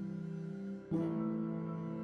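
Background music: an acoustic guitar chord rings on, and a new chord is struck about a second in and left to sustain.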